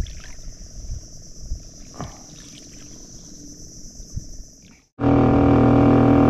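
Insects droning steadily at a high pitch, with a few low knocks. About five seconds in, an abrupt cut brings in the skiff's Suzuki 2.5 hp four-stroke outboard motor running loud and steady under way.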